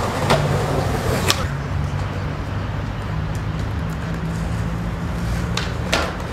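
Skateboard rolling on pavement over a steady low hum of street traffic, with a few sharp clacks of the board, two of them close together near the end.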